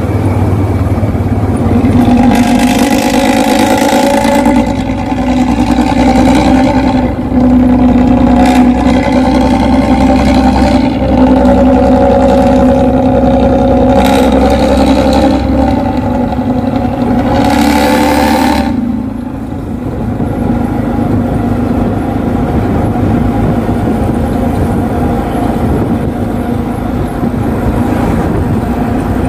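A motor vehicle engine running steadily with an even drone, easing off about two-thirds of the way through and carrying on lower and rougher.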